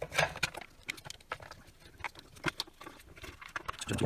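Irregular small clicks and knocks of hard plastic motor-casing halves and the circular saw's housing being handled and fitted together, with a louder knock near the end.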